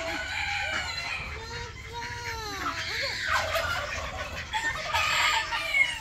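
Domestic fowl calling over one another, with one long call that rises and falls about two seconds in.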